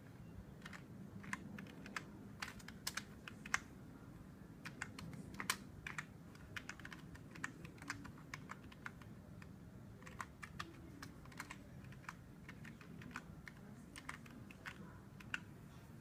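Keystrokes on a computer keyboard: slow, irregular key clicks of a command being typed, with short pauses between bursts of keys.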